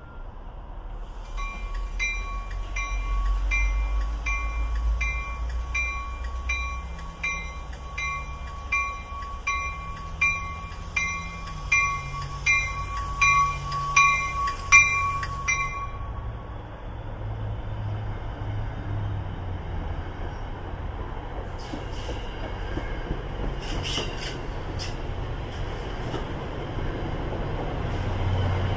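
Railroad warning bell ringing about twice a second, getting louder before it stops about 16 seconds in. Under it runs the low rumble of a train, and a few sharp clicks come later.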